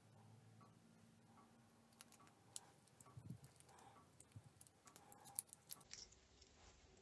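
Faint, scattered clicks and crinkles of a thin strip cut from a plastic bottle being folded and worked between the fingers, growing more frequent from about two seconds in.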